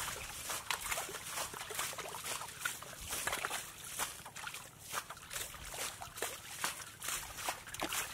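Shallow muddy water splashing and sloshing in many small, irregular splashes as feet and hands wade and grope through it.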